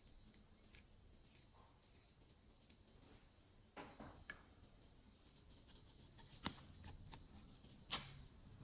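Quiet slime-mixing handling sounds: faint scattered ticks and crackles, with a sharp click a little before halfway and two louder sharp clicks near the end.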